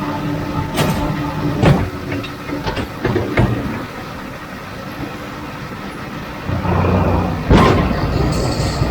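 Tractor engine running steadily, with several sharp clunks and knocks of machinery and a louder surge near the end.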